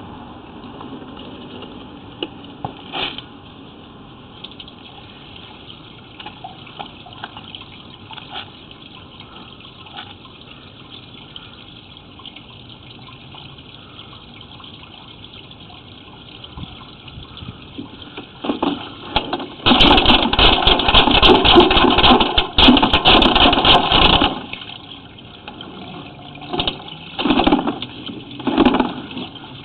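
Water rushing through a sewer line. It starts suddenly and loud about two-thirds of the way in, runs for about five seconds, then comes back as several shorter surges near the end, over a low steady hiss.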